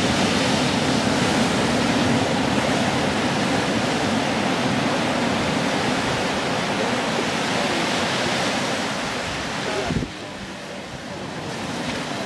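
Surf washing onto a sandy beach: a steady rush of breaking waves that turns suddenly quieter about ten seconds in.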